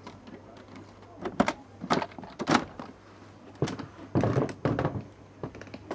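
Several sharp knocks on a front door, about half a second apart, then the latch and handle rattling as the door is opened about four seconds in.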